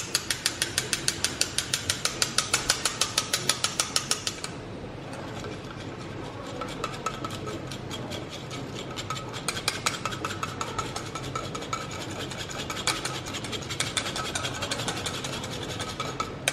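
A steel spoon scraping chutney powder through the wire mesh of a small stainless steel tea strainer. For about the first four seconds it makes a fast, even ticking, then turns to a softer, irregular scraping with occasional ticks.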